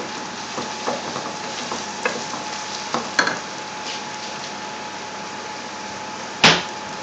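Chopped onions and whole spices sizzling steadily in hot oil in a metal pot, stirred with a wooden spoon that gives a few light knocks against the pot. There is one sharp knock near the end.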